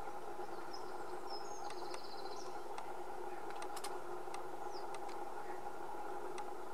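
A steady hum with several held tones, with faint, brief, high bird chirps about two seconds in and again near five seconds, and a few sharp ticks in the middle.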